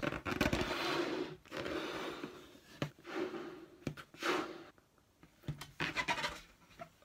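Hard breaths blown one after another into a large latex balloon, air rushing in as the rubber stretches. The balloon is already big and tight.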